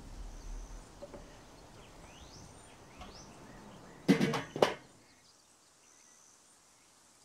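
Lid of a Weber Performer kettle grill closed onto the bowl: a metallic clank about four seconds in, followed by a second knock half a second later.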